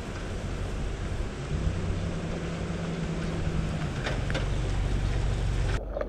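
A motor vehicle's engine hum, a low steady drone that steps down slightly in pitch as it passes, over a steady hiss of wind and traffic noise. It cuts off abruptly near the end.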